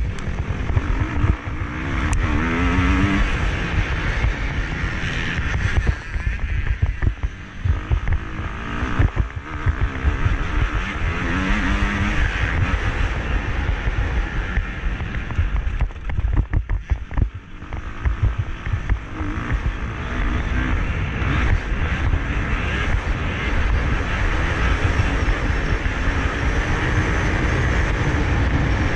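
Motocross bike engine racing hard, heard close up from an onboard action camera. The revs climb and fall again and again as the throttle is worked through the gears. The engine briefly eases off about a quarter of the way in and again a little past halfway.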